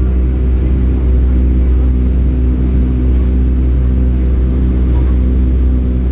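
Steady low drone of a Boeing 757-200's jet engines and rushing air heard inside the passenger cabin, with a few steady humming tones under a deep rumble.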